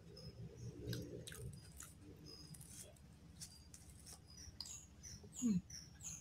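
Fingers mixing rice and raw-tempe sambal on a plate: soft wet clicks and squishes. Faint high bird chirps in the background, with several quick falling chirps in the second half and one short louder note falling in pitch about five and a half seconds in.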